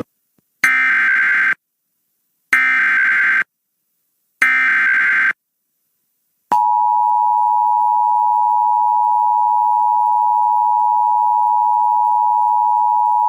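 Emergency Alert System SAME header: three short bursts of warbling digital data tones, about a second each with a second's gap between, sending the coded alert. Then the two-tone EAS attention signal starts about six and a half seconds in, a steady loud dual tone.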